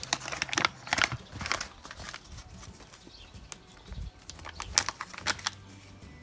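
Crinkling and rustling of a flour bag's packaging as it is pulled open, in a quick run of sharp crackles. More crackles come about three and a half to five and a half seconds in as the bag is tipped to pour.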